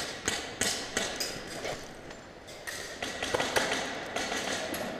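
Airsoft replica rifles firing: irregular sharp clicks and cracks, thicker about three seconds in, echoing in a large empty concrete hall.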